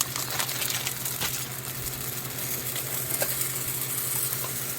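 Dry rice paper sizzling and crackling in a frying pan that is too hot: it crisps up within seconds of going in.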